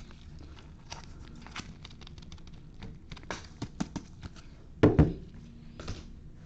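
Baseball trading cards being handled at a table: a run of light clicks and flicks as cards are flipped through and set down, with a louder knock about five seconds in.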